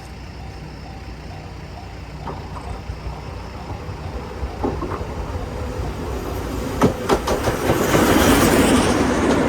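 Steam train of the SL Paleo Express approaching and reaching a level crossing, growing steadily louder, with wheels clicking over the rail joints near the end. A level-crossing alarm rings on and off at first.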